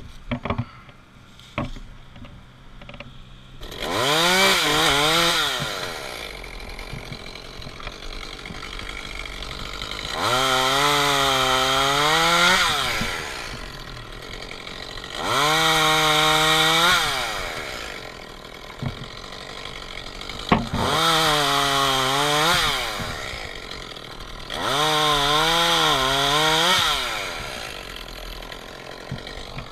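Echo CS-271T two-stroke top-handle chainsaw idling, then opened up to full throttle five times in bursts of about two seconds to cut maple limbs, its pitch wavering as the chain loads in the wood. A few sharp knocks come just before the first cut.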